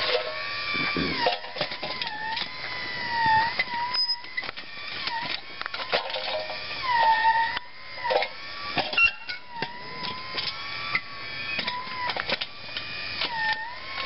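Electric motor driving the backhoe's hydraulic pump, a steady whine whose pitch sags briefly many times as the hydraulics take load while digging, then recovers. Frequent short clicks and knocks are mixed in.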